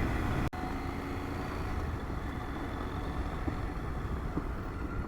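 KTM 890 Adventure R parallel-twin motorcycle running steadily while riding on a gravel road, heard as a low engine rumble mixed with road and wind noise, with a brief break about half a second in.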